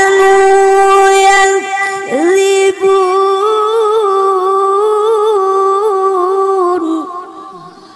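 A voice reciting the Qur'an in melodic tilawah style, holding long ornamented notes. It breaks and slides about two seconds in, then holds the next note before fading out near the end.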